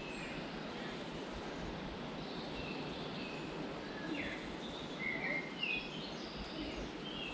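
Small birds chirping in short scattered calls, mostly in the second half, over a steady outdoor background hiss.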